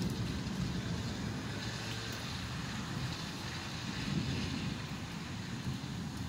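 Thunderstorm ambience: a steady hiss of rain with an uneven low rumble underneath.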